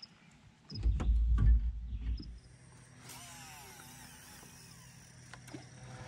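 Heavy low thumps and rumbling for about a second and a half, then a steady low hum of a boat's outboard motor running.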